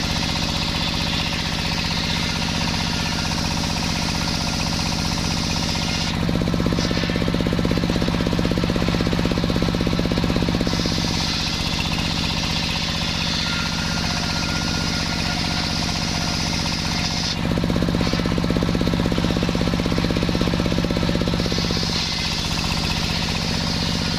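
Sawmill saw running steadily through a waru log, with a constant low machine drone. A higher hiss comes in for several-second stretches, three times, between spells where the low drone is stronger.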